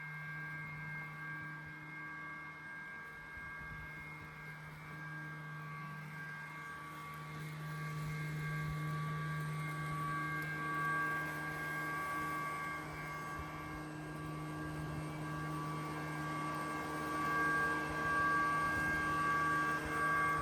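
Lymow One robot lawn mower running: a steady electric hum with several fixed whining tones above it, getting a little louder partway through.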